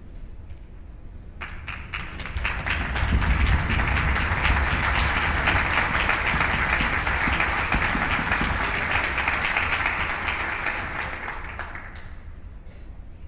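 Audience applauding, starting about a second and a half in, swelling, then dying away near the end.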